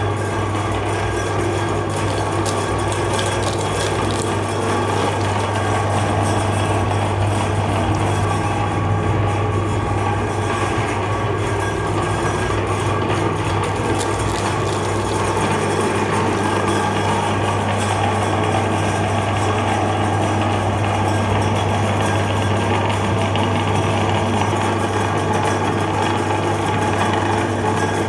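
Electric meat grinder running steadily with a strong low hum, its auger grinding frozen ice cream bars and their wooden sticks.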